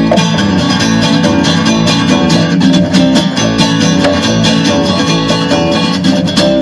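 Live acoustic guitar strummed in a fast, steady rhythm over a plucked upright bass.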